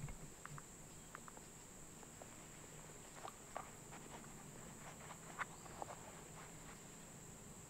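Steady high-pitched chorus of insects, with scattered faint clicks and rustles, most of them in the middle.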